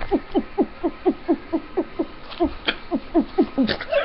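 A person making the "heart noise" with the throat and neck: a rapid run of short pitched pulses, each gliding downward, about five a second.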